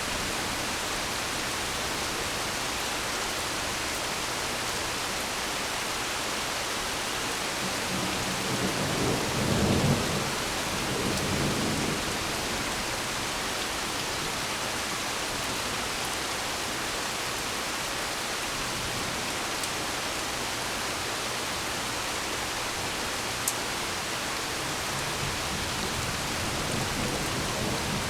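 Steady rain hissing, with a rumble of thunder about eight seconds in that lasts around four seconds, and another fainter rumble building near the end.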